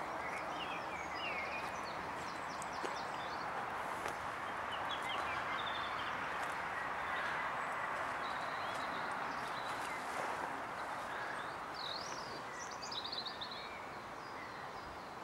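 Outdoor ambience: a steady background hiss, with small birds chirping now and then, most noticeably near the end.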